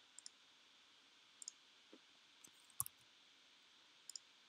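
Faint clicks of a computer mouse button, several as quick double clicks, the loudest a little before three seconds in, against near-silent room tone.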